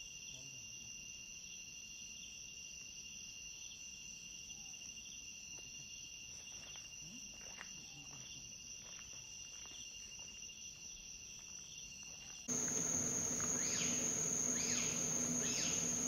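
Night chorus of crickets and other insects: a steady high-pitched trill with a second, pulsing trill beneath it. About twelve seconds in, it cuts to a louder daytime insect chorus with a few short bird calls over it.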